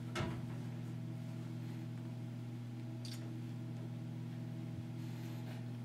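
Steady low hum and faint hiss of room tone, with a soft knock about a quarter second in and a brief faint rustle about three seconds in.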